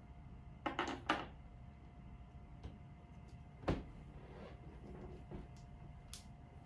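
Small plastic toy pieces clicking and tapping as they are handled and fitted together: a cluster of quick clicks about a second in, and one sharper knock a little after halfway.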